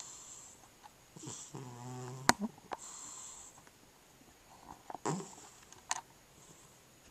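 Cat snoring in its sleep: a run of hissing breaths, one of them with a low buzzing snore about a second in. A few sharp clicks are mixed in, the loudest just after the snore.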